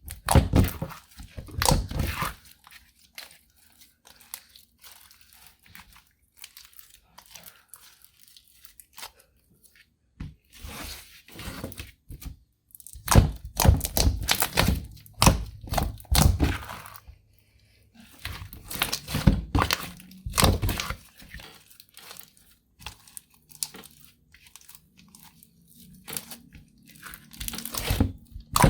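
Clear slime mixed with eyeshadow being squeezed and pressed by hand, giving bursts of sticky clicking and popping crackles with short quiet pauses between them.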